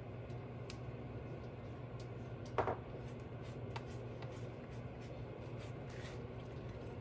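Soft, faint strokes of a silicone pastry brush spreading milk over a sheet of puff pastry, over a steady low hum. One short, louder sound stands out about two and a half seconds in.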